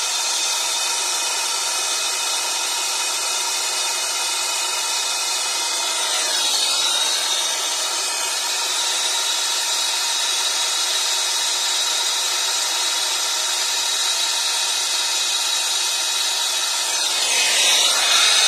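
Brazing torch flame hissing steadily as it heats a copper refrigerant-line joint on a heat pump's indoor coil.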